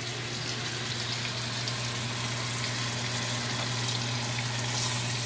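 Shrimp frying in hot oil in a pot, a steady even sizzle, over a constant low hum.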